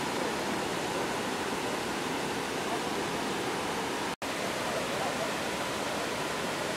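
Monsoon-swollen waterfall: a heavy torrent of floodwater rushing over rocks in a steady, unbroken wash of noise. The sound drops out for an instant a little past four seconds in.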